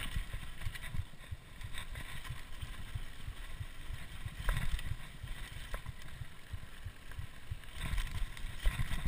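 Mountain bike rolling fast down dusty dirt singletrack: tyres crunching over dirt and small rocks with the frame and drivetrain rattling, a few sharp knocks, and a low rumble of wind on the microphone.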